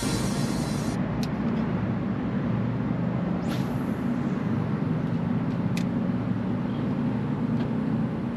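Steady low motor rumble, with a few faint thin clicks scattered through it.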